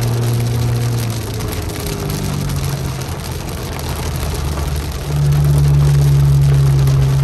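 Heavy rain drumming on a moving car, heard from inside the cabin, over the car's engine hum. The hum shifts pitch a few times and gets louder about five seconds in.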